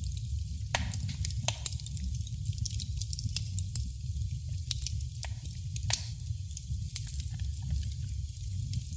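Wood fire crackling in a fireplace: a steady low rumble of burning with frequent irregular pops and snaps over a soft hiss, the sharpest snaps about a second in and again about six seconds in.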